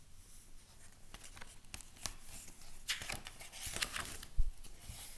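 Pages of a paperback picture book being handled and turned: quiet paper rustling and light clicks, with a soft low bump about four seconds in.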